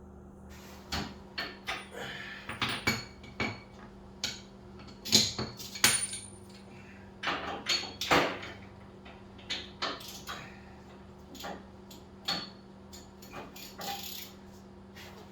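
Wrenches clinking and clanking on metal as the motorcycle's rear axle nut is worked loose: irregular sharp metallic clinks, a few ringing briefly, over a steady low hum.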